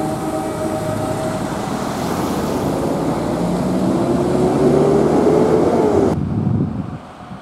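Road traffic at a railroad grade crossing, with an engine's rising tone swelling to the loudest point about five to six seconds in. Near the end the sound drops off suddenly to quieter wind and distant traffic.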